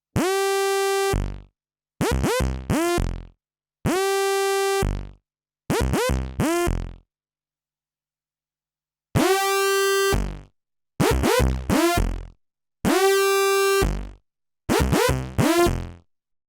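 MS-20-type analog monosynth playing a bright, buzzy lead tone on one pitch. Every note starts with a quick upward pitch swoop. The pattern of one long note followed by two short ones repeats four times, with a pause about halfway through.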